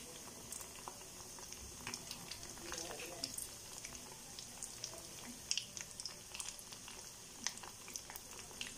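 Breaded stuffed pasta deep-frying in hot oil in an iron kadai on a low flame: a faint, steady sizzle dotted with small crackles and pops.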